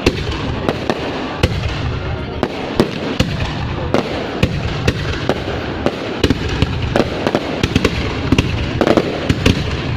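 Fireworks display: many sharp bangs and crackles in quick, irregular succession over a continuous low rumble.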